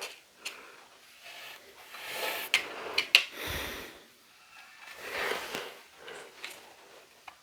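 Small plastic LEGO pieces being handled and fitted together: soft rustling and rubbing with a few sharp clicks a little over halfway through the first half.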